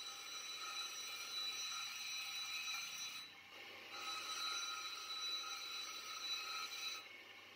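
Steel meat grinder blade pressed against a spinning grinding wheel to sharpen it: a steady grind with a high ringing tone. It breaks off for a moment about three seconds in and again near the end.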